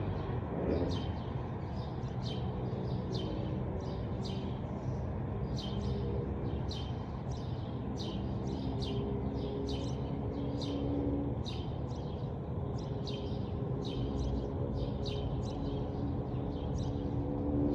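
A small songbird repeating short, high chirps that fall in pitch, about two a second, over a steady low background rumble.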